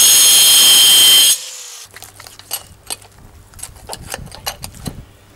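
Handheld angle grinder with a cutting disc running at full speed, a loud high-pitched whine as it cuts through the bone of a beef head's jaw; it stops about a second and a half in. Then a knife cuts and scrapes at meat and bone in scattered small clicks.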